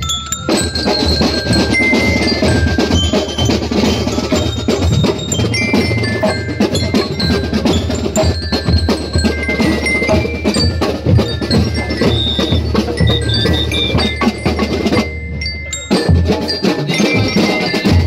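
A drum and lyre corps playing: bell lyres struck with mallets ring out a tune of short bright notes over steady marching drums. The music breaks off briefly about three-quarters of the way through, then resumes.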